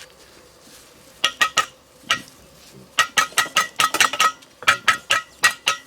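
Metal striking metal in sharp clinks, each with a brief ring: three strikes about a second in, then a quicker run of a dozen or so from about three seconds on.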